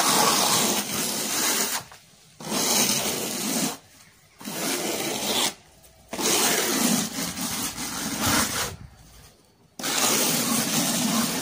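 A hand trowel scraping and spreading a cement-based insulating coating over a concrete roof deck. It goes in five long, rasping strokes with short pauses between them.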